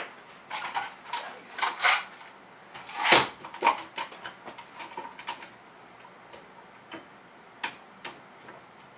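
Metal bar clamps being handled and set on a wooden form block. A run of clacks and clicks comes over the first few seconds, the loudest about three seconds in, then a few sparse ticks as a clamp is tightened.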